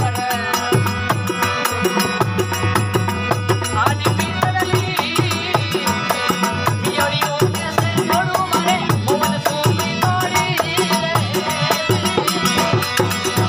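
Rajasthani devotional folk music from a prabhati bhajan, with a quick, even rattling percussion beat over drums and a melody line.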